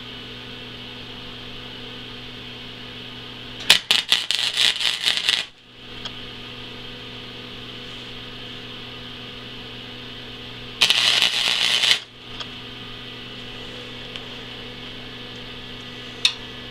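Two tack welds made with a flux-core wire-feed welder on steel plate: the arc crackles in two short bursts, the first about four seconds in and lasting under two seconds, the second about a second long, roughly eleven seconds in. A steady electrical hum runs underneath.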